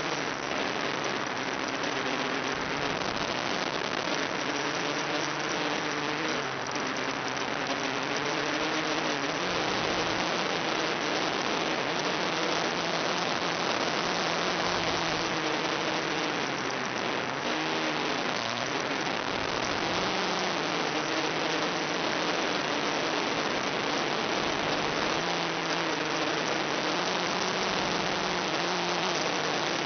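Small quadcopter's motors and propellers whining, their pitch wandering up and down with the throttle, under a steady hiss of analog video-link static.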